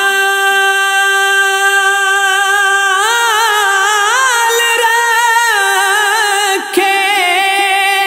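A male voice singing a naat, an Islamic devotional song, with no words: it holds one long note, winds it up and down in ornamented turns in the middle, and breaks briefly near the end before holding the note again.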